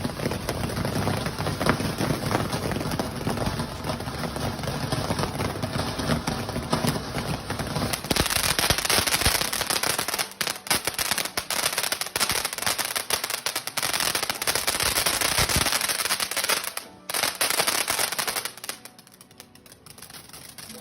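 Cool Breeze ground fountain firework burning: a steady hissing spray with dense rapid crackling throughout. The crackle dies away about eighteen seconds in as the fountain burns out.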